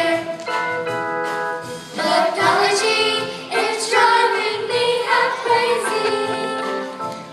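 A children's choir singing a song together with musical accompaniment, voices holding sustained notes.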